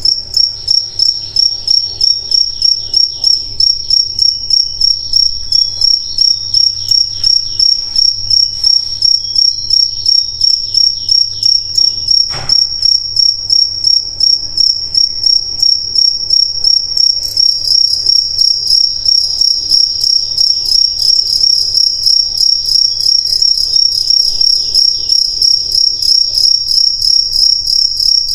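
Crickets chirping in a continuous chorus of rapid, evenly repeated pulses, growing louder about two-thirds of the way through. A single sharp click about twelve seconds in.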